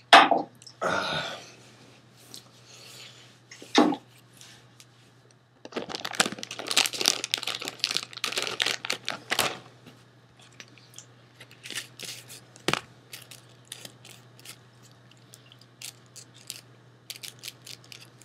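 Paper rustling and being handled, densest for a few seconds in the middle, with scattered small clicks and taps afterwards, over a faint steady low hum.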